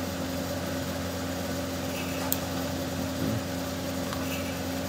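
Steady low machine hum with a few fixed tones, and one faint tick about two and a half seconds in.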